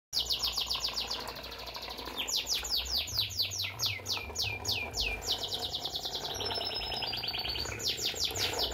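A songbird singing in fast trills of short downward-sweeping chirps, about eight to ten a second, shifting in pitch from one run to the next, over a low steady hum.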